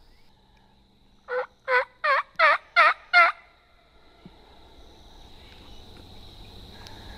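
A run of six loud turkey yelps, evenly spaced at a little under three a second, each note dropping in pitch.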